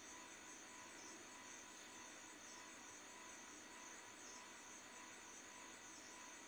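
Near silence: faint steady hiss of room tone with a thin, steady high-pitched band.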